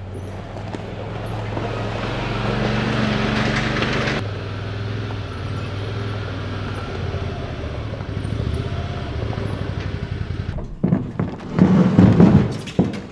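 A utility vehicle's engine runs as it drives up towing a small boat trailer, growing louder over the first few seconds. Near the end come loud scraping and knocking as a small aluminum Lowe jon boat is dragged onto the trailer.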